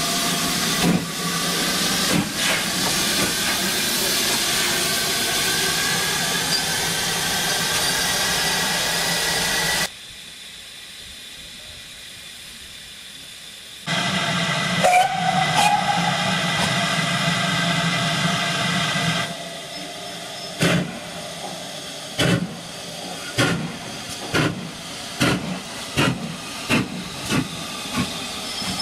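Steam locomotive sounds: a steady, loud hiss of steam, then a short whistle about halfway through. Near the end a locomotive starts away, its exhaust beats coming gradually quicker.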